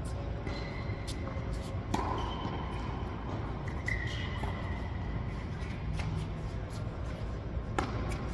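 Tennis rally on an indoor hard court: several sharp pops of rackets striking the ball and the ball bouncing, the loudest about two seconds in and just before the end, with short squeaks of sneakers on the court surface, over a steady low hum of the hall.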